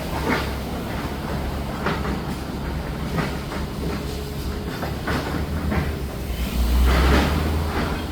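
Heavy demolition machinery rumbling steadily, with irregular clanks and crunches of debris every second or two, the loudest near the end.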